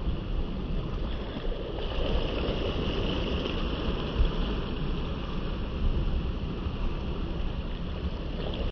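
Small waves lapping steadily on a sandy shore, with wind rumbling on the microphone.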